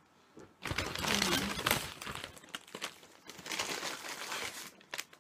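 Paper fast-food takeout bag and wrappers crinkling and rustling as items are pulled out, in two bouts: the louder one about a second in and another near four seconds.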